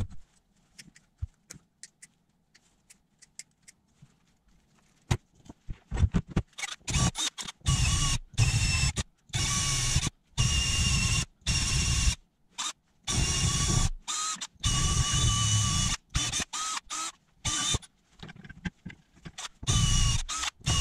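A few light clicks and taps, then a cordless drill spinning a small wire brush inside the ignition coil pack's lead sockets in repeated short bursts of about a second each, with a steady motor whine in every burst. The brush is scouring corrosion out of the holes where the coil leads go.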